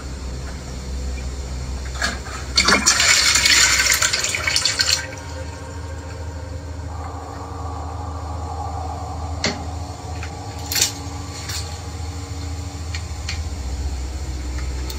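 A toilet flushing, with a loud rush of water from about two and a half to five seconds in. It is followed by the steady hiss of the cistern refilling, with a few faint clicks, over a low hum.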